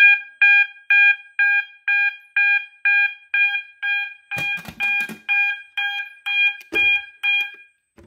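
Fire alarm horns sounding in march time: a steady 800 Hz horn tone pulsing on and off about twice a second, cut by the panel's march-time encoder. The horns stop shortly before the end, and a few brief handling knocks come partway through.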